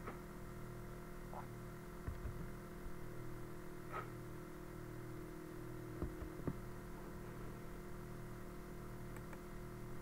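Quiet room tone with a steady low electrical hum and a few faint, scattered clicks.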